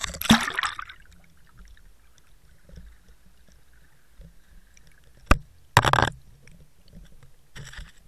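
An underwater camera going under the sea surface: a splash and bubbling in the first second, then a muffled underwater rumble. A sharp knock comes about five seconds in, followed by short bursts of rushing, bubbling noise around six seconds and again near the end.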